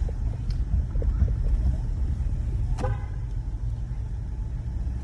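Low, steady rumble of a car's engine and tyres heard from inside the cabin while driving slowly. A brief high-pitched sound rings out about three seconds in.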